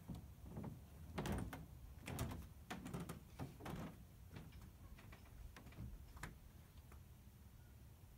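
A run of irregular knocks and scraping clunks, loudest a little over a second in and again at about two seconds, thinning out to a few light ticks by about six seconds.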